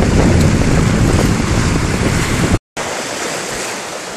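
Sea waves washing against shoreline rocks, with wind buffeting the microphone as a heavy low rumble. About two and a half seconds in, the sound cuts out for an instant and comes back quieter, with lighter wind and surf.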